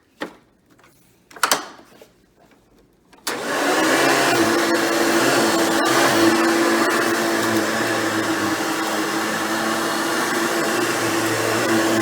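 Hoover Futura Dimension upright vacuum cleaner switched on a little over three seconds in, its motor coming up to speed almost at once and then running steadily with a constant hum. Before it starts there are two short knocks.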